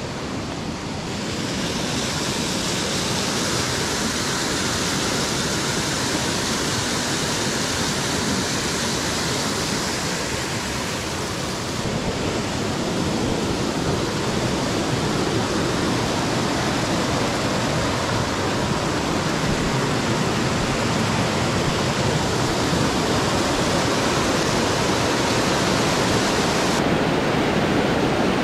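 Steady rush of falling water from a mountain waterfall or cascade. Its tone and level shift abruptly a few times.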